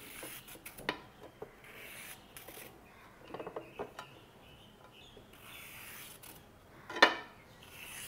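Metal vegetable peeler scraping peel off a raw carrot in repeated strokes, with light clicks and one sharper knock about seven seconds in.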